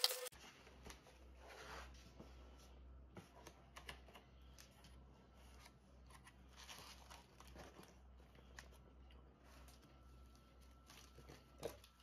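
Faint, scattered rustles, scrapes and small clicks of a cardboard box being cut open and its foam-packed contents handled.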